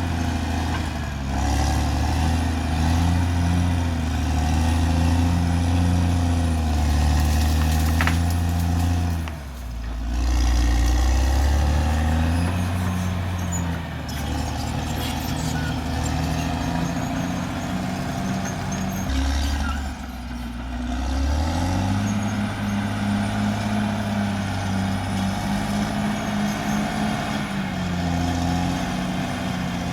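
Caterpillar D6R XL bulldozer's diesel engine running under working load, its pitch falling and rising several times as the load changes, with two brief dips, about nine and twenty seconds in.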